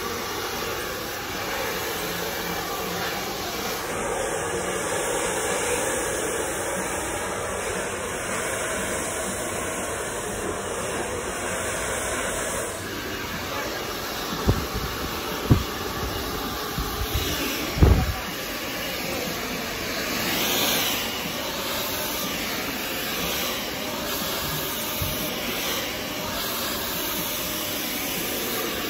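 Handheld hair dryer running steadily, blowing on long hair during a blow-dry with a round brush. A few short thumps come about halfway through.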